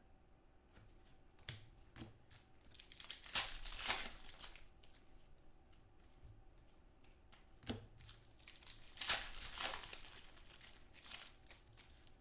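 A foil trading-card pack wrapper being torn open and crinkled by hand, in two spells about three seconds and about nine seconds in, with a few light taps of card handling between.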